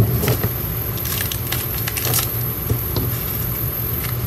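Glossy planner sticker sheets rustling and clicking as they are handled and squared into a stack on the table, a handful of short crinkly clicks over a steady low hum.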